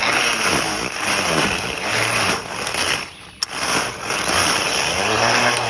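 Handheld string trimmer (weed eater) running with a steady whir, cutting out briefly about three seconds in and starting again with a click.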